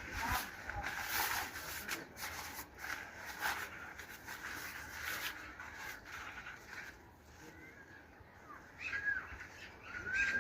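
Birds calling outdoors: a few short, arched calls in the last few seconds, after a first half of scattered clicks and rustling noise.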